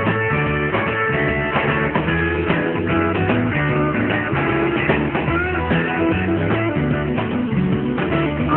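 Background rock song, an instrumental passage led by guitar, with no singing.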